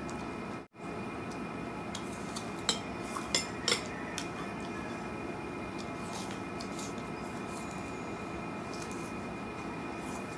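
A few sharp clinks of a metal fork against a glass baking dish, about three seconds in, over a steady background hum.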